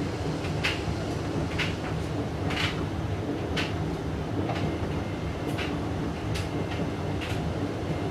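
Hoover DYN9144D3X washing machine tumbling an out-of-balance wet blanket load, its motor humming steadily with a knock about once a second as the drum turns. The load is unbalanced, so the machine keeps failing to reach its 1,000 rpm final spin.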